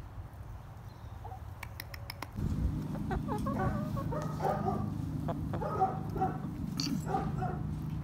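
Backyard hens clucking softly, a string of short calls starting about two and a half seconds in, over a steady low hum.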